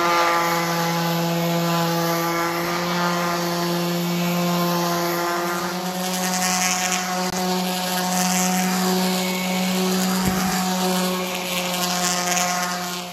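DeWalt random orbital sander running on 60-grit paper across a scrap-lumber butcher-block top: a steady motor hum with a scratchy sanding hiss.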